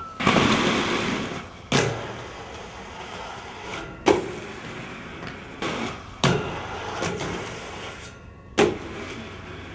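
Skateboard wheels rolling on pavement, broken by about five sharp clacks of the board striking the ground as tricks are popped and landed or missed.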